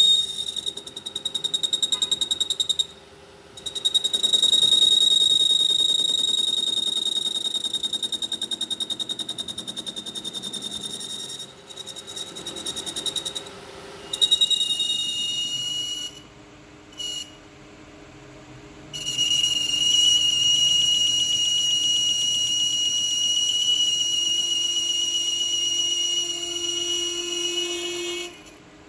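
Workshop machinery working on a steel gear shaft: a high-pitched buzzing whine that cuts out and restarts a few times, its pitch dropping after about 14 seconds.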